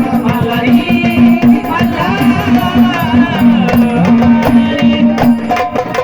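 Marathi gondhal folk music: rapid drum and rattle strokes under a pulsing, repeated low note, with a wavering melody line above.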